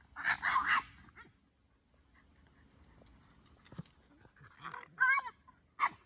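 Boston Terrier's silly play vocalizations: a short, rough, grumbling burst at the start, then a whining call that bends in pitch about five seconds in and a brief yip just before the end.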